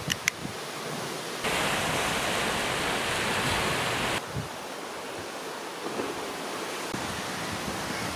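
Steady outdoor noise of sea surf and wind, louder for a few seconds in the middle, with a couple of small clicks just after the start.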